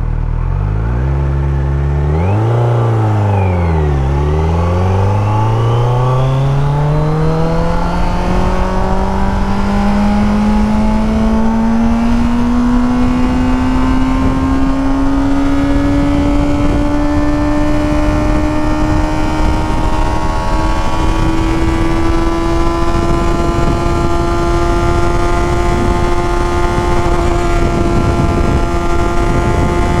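Kawasaki Z900's inline-four engine accelerating hard in first gear: the pitch rises and falls twice in the first few seconds, then climbs steadily and levels off at a high, nearly constant pitch as the bike holds close to 100 km/h. Wind rush grows underneath.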